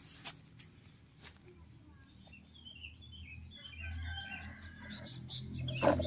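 Small birds chirping, a rapid series of short high notes in the second half. A low steady hum comes up about two-thirds through, and there are a few light knocks.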